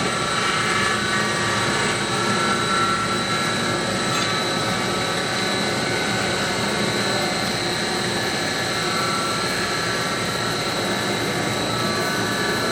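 Welding electrode making machinery running steadily: an even mechanical noise with a constant high whine.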